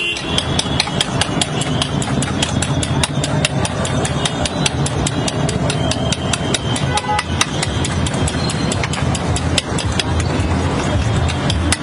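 A metal spoon clinking rapidly against a small steel bowl as a yellow mixture is beaten, giving quick, uneven clicks several times a second, over a steady hum of street noise and traffic.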